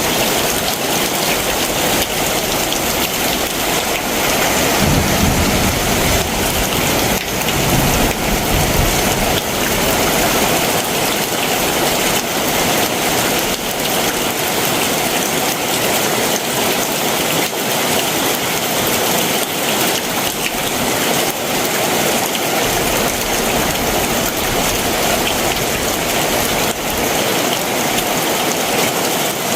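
Heavy summer monsoon downpour: a steady, dense hiss of rain pouring onto surfaces. A low rumble comes in about five seconds in and fades a few seconds later.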